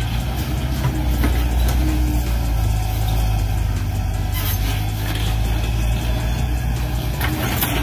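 Steady low engine rumble from a radio-controlled Volvo excavator's sound unit, with a few faint clicks as the arm works.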